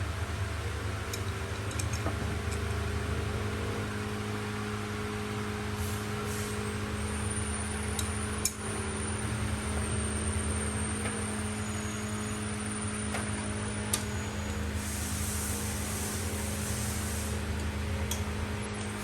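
Steady low machine hum of workshop equipment, with a few light clicks and a faint high whistle in the middle.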